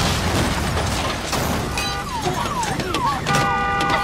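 Film trailer sound mix: a dense rumble of exploding, burning cars over music. From about two seconds in, falling alarm-like tones repeat every half second or so, then give way to a steady sustained tone near the end.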